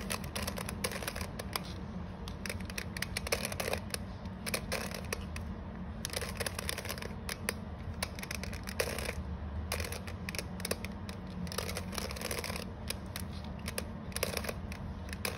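Plastic 3x3 Rubik's cube clicking and clattering as its layers are turned, many small irregular clicks over a low steady hum.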